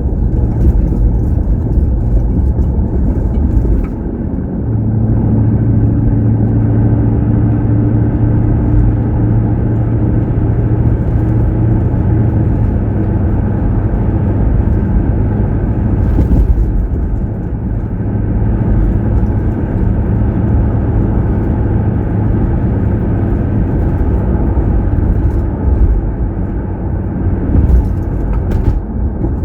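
Steady rumble of a car on the move, engine hum and road noise, with a constant low drone.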